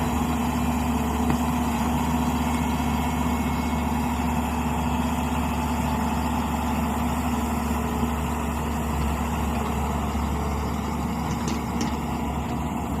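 Tata Hitachi EX210 excavator's diesel engine running steadily at an even speed.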